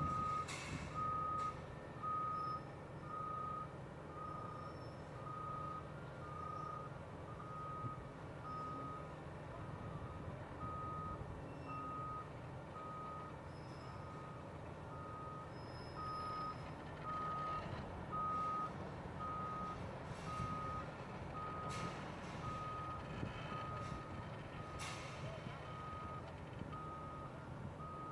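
A heavy construction machine's backup alarm beeps steadily about once a second over the low running of diesel engines, with a couple of sharp knocks late on.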